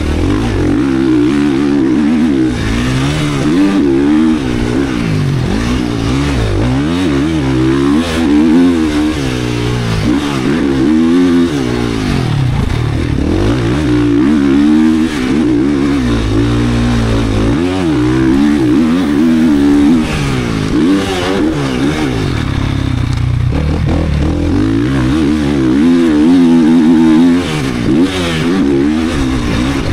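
GasGas 450 motocross bike's single-cylinder four-stroke race engine being ridden hard, its pitch rising and falling continually every second or two with throttle and gear changes.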